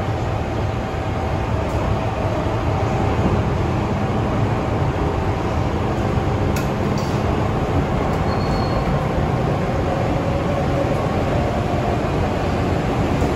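Cabin noise inside a Hong Kong MTR M-train on the move: a steady rumble of wheels and running gear with a faint steady whine over it.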